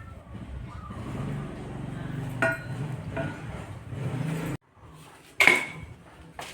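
Metal parts and tools being handled in a workshop: a few short clinks over a low hum, which cuts off suddenly, then one loud, sharp metallic clink that rings on briefly.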